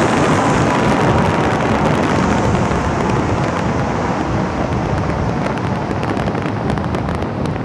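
Wind tunnel airflow at up to 70 mph rushing over the microphone: a loud, dense wind noise with buffeting. The hiss thins and the wind eases gradually through the second half.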